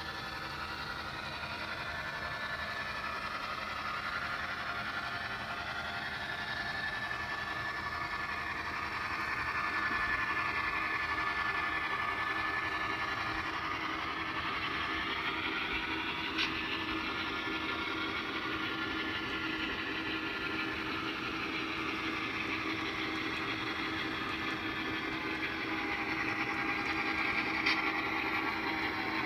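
HO-scale model train running: the battery-powered Athearn Genesis FP7 locomotive and its cars give a steady mechanical hum with a steady low tone and slowly rising and falling whines. Two short clicks, one about halfway and one near the end.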